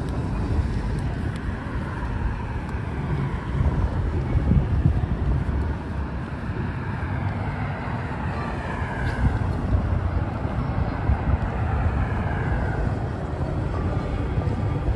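Outdoor traffic noise with wind rumbling on the microphone, and a faint whine that slides in pitch in the second half.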